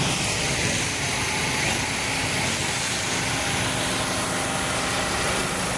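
Steady outdoor engine and road noise with a faint low engine hum, as from vehicles or machinery running nearby.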